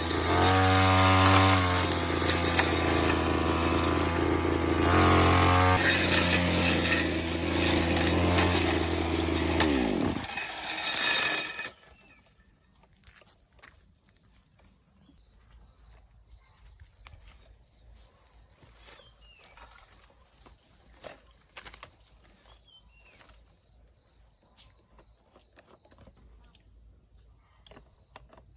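Two-stroke brush cutter engine running and revving twice, then slowing and dying about ten seconds in: the engine cutting out mid-job. Afterwards a steady high insect trill and a few faint knocks.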